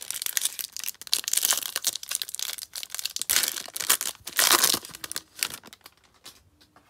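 Wrapper of a 2020 Topps Series 1 baseball card pack crinkling and tearing as it is ripped open by hand. It is loudest about a second in and again around four and a half seconds, then dies down near the end.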